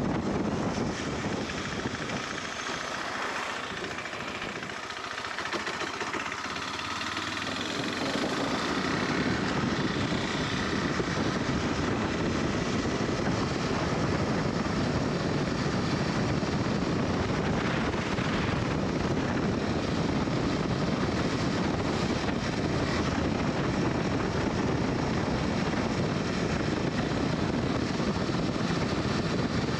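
KTM 390 Adventure's single-cylinder engine running under way, mixed with wind rushing over the microphone. It eases off for a few seconds starting about two seconds in, then picks up again and runs steady.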